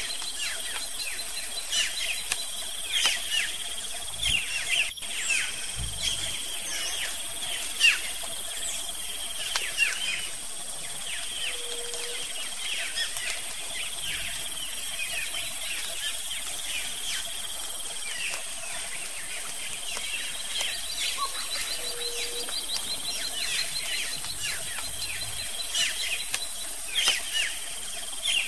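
Tropical forest ambience: many short, quick falling bird chirps over a steady high insect drone, with a soft low hoot twice.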